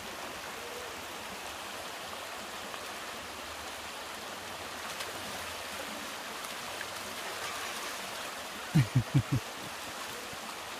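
Shallow river flowing steadily, with the splashing of a big dog digging with its front paws in wet sand at the water's edge. About nine seconds in, a quick run of four short, low, pitched sounds.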